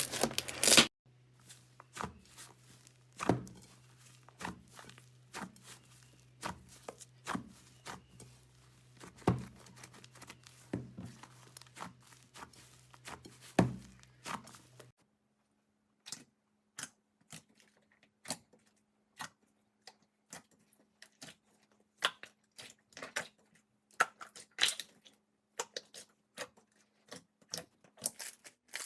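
Slime being pressed and pulled by hand, giving irregular sticky pops and crackles a few times a second with short quiet gaps, over a faint steady hum.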